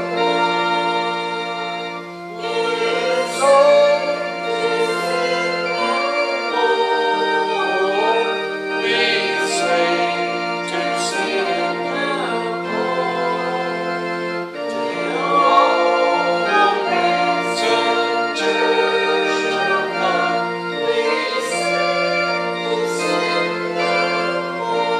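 Organ playing sustained chords, with voices singing along.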